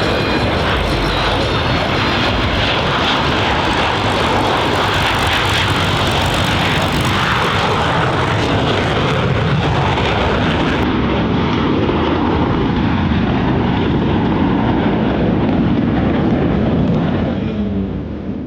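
Twin General Electric F414 turbofan engines of an EA-18G Growler, a loud, steady jet engine noise from an aircraft in flight, fading away near the end.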